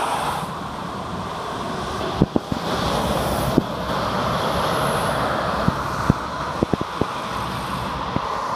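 Dual-carriageway traffic: lorries and cars passing below, a steady rush of tyre and engine noise, with a few short thumps through the middle.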